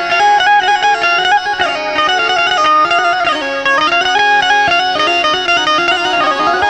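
Instrumental interlude of a Gujarati devotional bhajan: a quick stepping melody, reedy in tone, played over a steady held drone.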